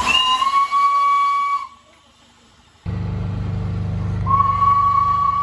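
Steam locomotive whistle blowing twice: a steady single-note blast of about a second and a half, then after a short gap a second blast of the same pitch over a steady low rumble.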